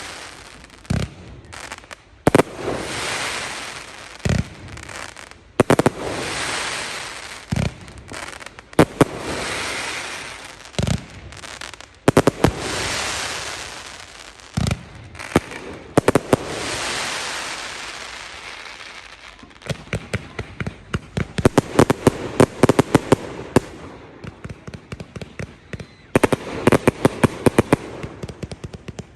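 Fireworks display: shells bursting with a bang every second or two, each followed by a crackling spray. About two-thirds of the way through it turns into rapid strings of crackling pops.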